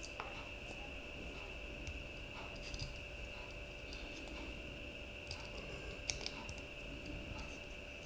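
Small precision screwdriver turning the tiny screws in the aluminium end cap of a portable M.2 SSD enclosure: a few light metallic clicks and scrapes of the tip against screw and casing, the sharpest right at the start.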